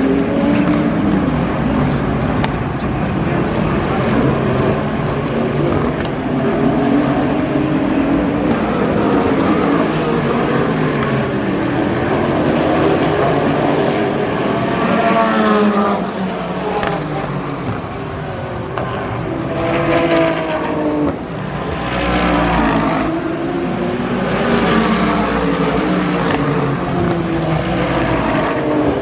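Several IMSA race cars, GT cars and a prototype, one after another through a street-circuit corner: engines overlapping, rising in pitch again and again as they accelerate through the gears, with the strongest rising passes about halfway and in the last third.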